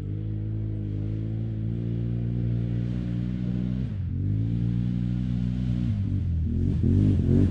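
Can-Am Renegade quad's V-twin engine running at high revs and growing louder as it approaches. The revs dip and climb again about four seconds in and several more times near the end.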